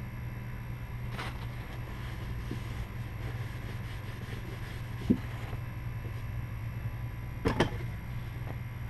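Steady low hum with a few light clicks and taps of small parts being handled: one about a second in, a sharper one about five seconds in, and a quick double click near the end.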